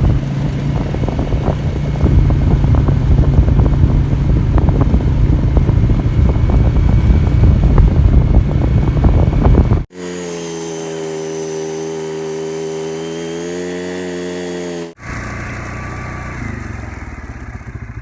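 A small engine running with a rattle for about ten seconds. Then a sudden cut to a steady pitched hum, and near the end another cut to a quieter, mixed sound.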